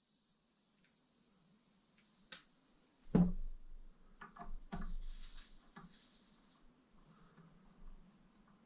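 Handling noise of metal parts and tools at a workbench while a shock's nitrogen-release bolt is taken out: a single solid knock about three seconds in, then a few light clicks and taps.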